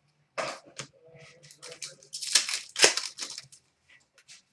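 Hockey trading cards being handled: papery rustling and sliding with some crinkling, in short irregular bursts, loudest a little past the middle.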